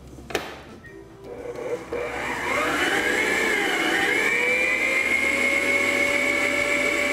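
Arno Planetária stand mixer switched on about two seconds in, its motor whine rising in pitch, dipping briefly, then running steadily as it whips fresh cream with sugar. A single short knock comes shortly before it starts.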